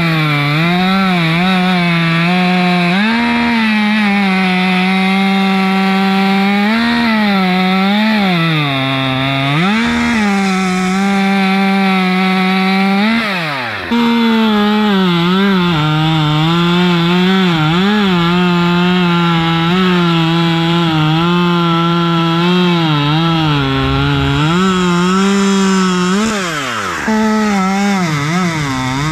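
Husqvarna T540 XP Mark III top-handle chainsaw, a 40 cc two-stroke, running at full throttle while cutting wood, its pitch sagging under load and picking up again over and over. Twice, about halfway and near the end, the throttle drops off briefly and the engine revs back up.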